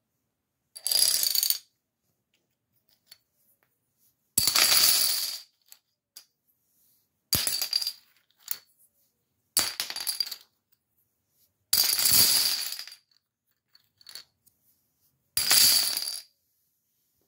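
Hollow plastic dominoes toppling and clattering onto a wooden floor as a stacked domino tower collapses section by section: six separate bursts of clatter, each about a second long, every two to three seconds.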